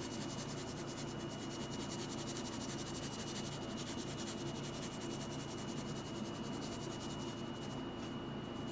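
Steady background hum with a thin, constant high-pitched whine over it, unchanging throughout.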